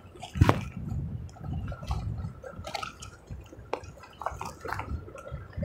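Handling noise from fishing tackle on grass: scattered small clicks and knocks, with a louder knock about half a second in, over a low uneven rumble.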